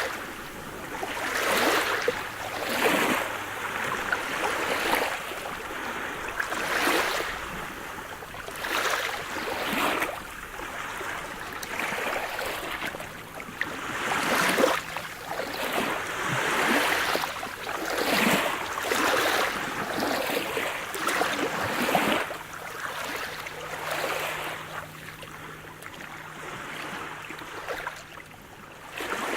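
Sea waves breaking and washing on a shore, one swell after another every second or two.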